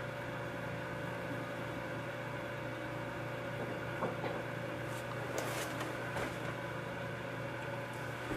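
Steady low electrical hum of room tone, with a few faint soft clicks and rustles a few seconds in.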